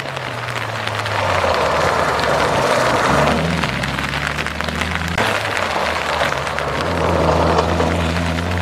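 Background music with sustained low bass notes that jump to a new pitch every couple of seconds, over a steady rushing noise.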